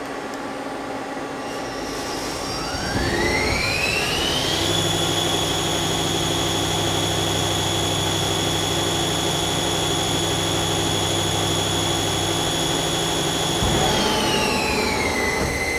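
Mazak CNC lathe spindle spinning up to about 2000 rpm with a rising whine, running steadily at speed with a low hum underneath, then winding down near the end.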